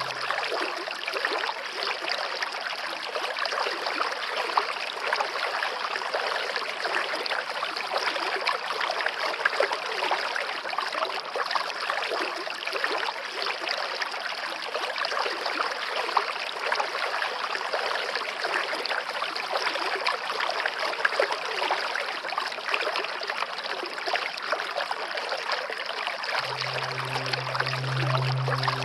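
Running stream water, a steady flowing and trickling without pause. A low held musical tone comes in underneath near the end.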